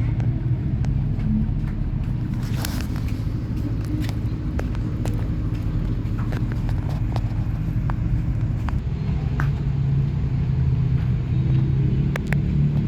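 Mini washing machine running: a steady low motor hum with scattered light clicks and taps.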